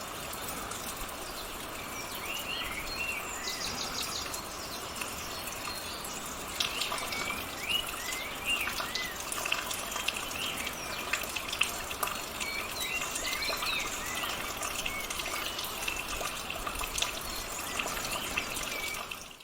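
Small forest birds calling in many short chirps that rise and fall, over a steady hiss of background noise.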